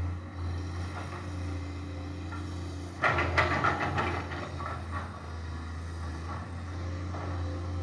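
Komatsu excavator's engine running with a steady low hum, and a louder, harsher burst of machine noise about three seconds in that lasts a second or two before settling back.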